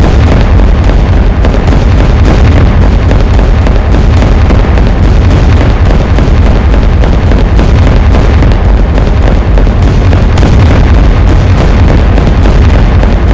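Plane flying overhead: a loud, steady, deep rumble of engine noise that holds at full strength and overloads the microphone.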